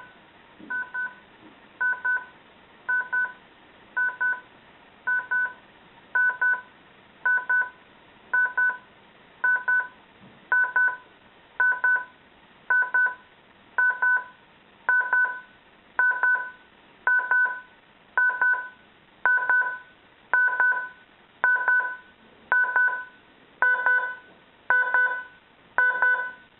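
Majority Milton CB30 DAB clock radio's alarm beeper sounding: short double beeps about once a second, repeating evenly and growing steadily louder, the alarm's gradually increasing volume set to maximum.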